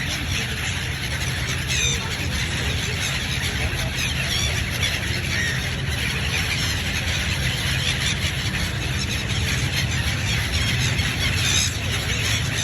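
Birds giving scattered short, high squealing chirps over a steady low rumble of background noise.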